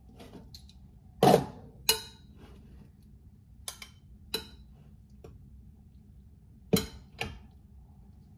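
Metal serving spoon clinking against cookware and a ceramic plate while peas are dished up: about seven sharp clinks at irregular intervals, the loudest about a second in.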